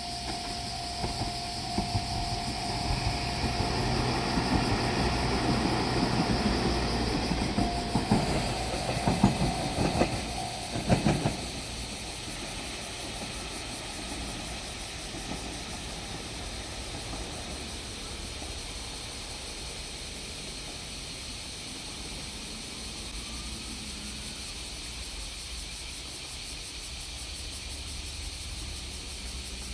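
A diesel railcar train passing at low speed, its wheels clacking over rail joints in a quick run of knocks about 8 to 11 seconds in. A steady high tone sounds alongside and stops just after the knocks. A steady low rumble follows to the end.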